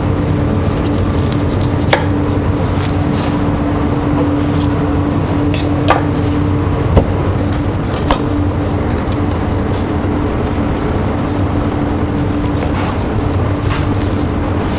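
A knife working through a whole milk-fed lamb carcass on a wooden cutting board, with four sharp knocks of blade and carcass on the board between about two and eight seconds in. A steady kitchen hum runs underneath.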